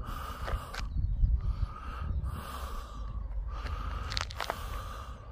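Wind rumbling on the microphone, with faint scuffs and rustles from walking.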